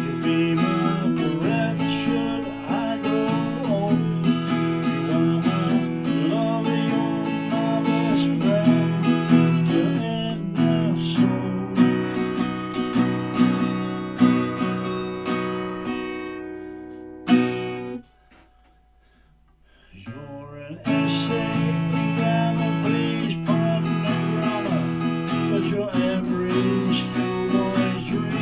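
Acoustic guitar strummed in steady chords while a man sings along. About two-thirds of the way through, the strumming dies away, a sharp click sounds, and there are about three seconds of near silence before the strumming and singing start again.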